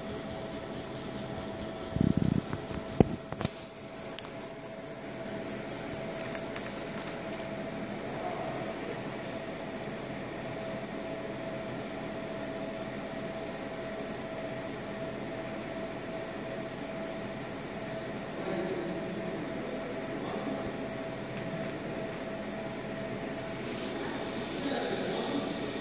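Laser marking machine running with a steady fan hum and a faint steady whine. A loud thump and a sharp click come about two to three seconds in.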